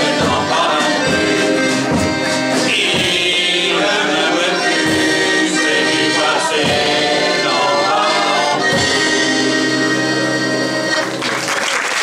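A group of men and women singing a song together, accompanied by accordion, acoustic guitar and drums. The song ends on a long held final chord, and applause breaks out about eleven seconds in.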